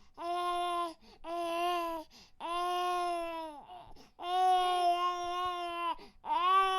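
A baby crying in a string of drawn-out wails, about five of them, each a second or so long with short breaths between, the pitch dropping at the end of each wail.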